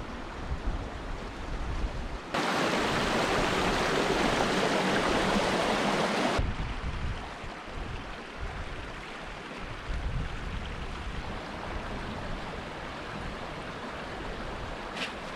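Outdoor rushing water, like a mountain stream, with wind rumbling on the microphone. A louder rush starts suddenly about two seconds in and cuts off abruptly about four seconds later.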